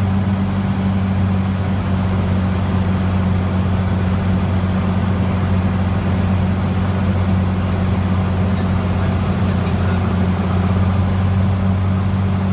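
Cessna 182T's Lycoming IO-540 six-cylinder engine and propeller running steadily in cruise power, a constant low drone heard inside the cabin.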